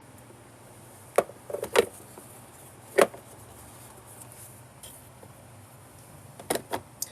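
Scattered short plastic clicks and knocks from the dirt cup and cyclone filter parts of a Bissell PowerForce Helix upright vacuum being handled: one about a second in, two more just before two seconds, one at three seconds, and a quick cluster near the end.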